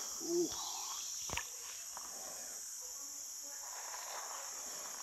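Steady, high-pitched chorus of insects. A short low pitched sound comes near the start, and a single sharp knock about a second and a half in.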